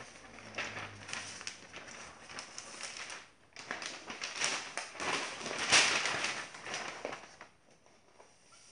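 Sheets of newspaper rustling and crinkling as they are handled and folded into a bundle, loudest in the middle and dying down near the end.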